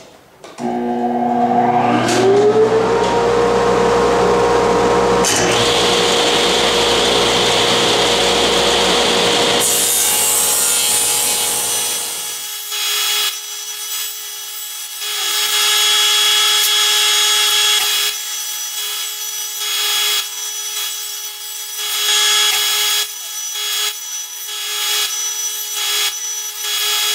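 Table saw switched on, its motor spinning up with a rising whine, then running steadily while the blade rips pine boards lengthwise into strips. The cutting noise swells and eases with each board fed through.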